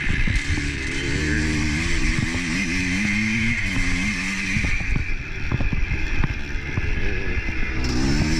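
Motorcycle engine running, its revs rising and falling several times, with knocks and rattles mixed in.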